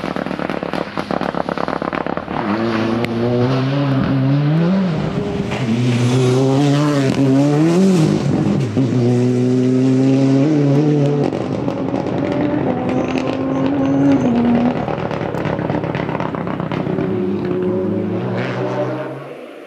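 Fiat 124 Abarth Rally car's turbocharged four-cylinder engine at full stage pace: a burst of exhaust crackles and pops, then the engine pulls hard through the gears, revs climbing and dropping at each shift. It runs on steadily as the car goes up the road and dies away near the end.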